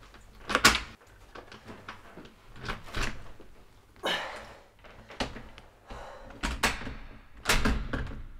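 A series of about six sharp knocks and thuds, spaced irregularly a second or so apart.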